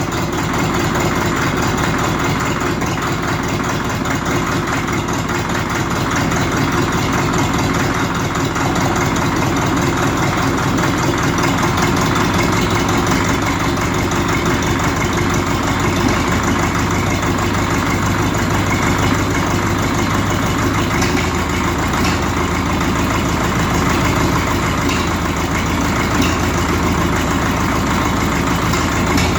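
1951 Caterpillar D4's four-cylinder diesel engine idling rough just after a cold start on ether, still warming up with not all cylinders firing yet.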